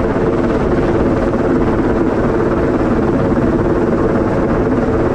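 Helicopter hovering close overhead during a sling-load lift: loud, steady rotor and engine noise with no let-up.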